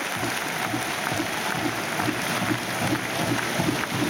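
Arena crowd between points: a steady hubbub of many people talking at once, with no single voice standing out.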